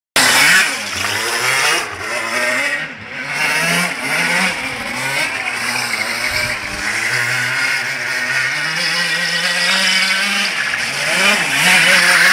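Go-kart engine revving up and down as the kart slides around, the pitch rising and falling repeatedly. The uploader says its crankshaft bearing is broken and it has no power.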